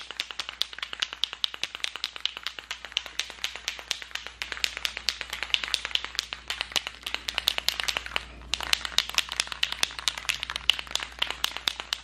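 Aerosol spray paint can being shaken, its mixing ball rattling rapidly and evenly, with a brief pause about 8 seconds in.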